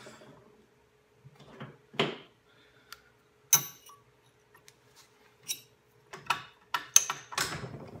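Steel hand tools and punches clinking and knocking as they are handled and set against the rifle's muzzle device: a handful of sharp metallic clinks, the loudest, ringing ones a little past three and a half seconds and near seven seconds. A faint steady hum runs underneath.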